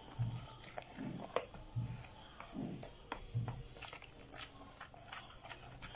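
Wet squelching of a thick shea-and-mango-butter and oil mixture being stirred by a gloved hand in a plastic bowl, in repeated strokes about every 0.8 s with small sticky clicks between them.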